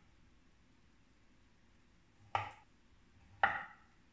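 A kitchen knife cutting through avocado and knocking down onto a wooden cutting board twice, about a second apart, each a short sharp knock.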